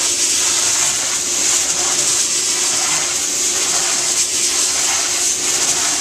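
Compressed air hissing steadily from a blowing wand swept across a rug's pile, driving out dry soil, with a faint steady hum underneath.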